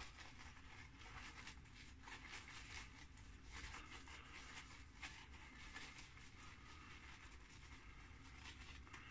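Faint, irregular soft scratching of a badger-hair shaving brush being swirled over a tallow-based soap puck to load it.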